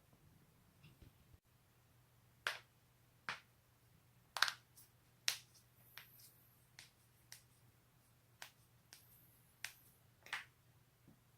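A person cracking their own joints: a string of about a dozen sharp pops at uneven intervals, roughly one every half second to a second, beginning a couple of seconds in.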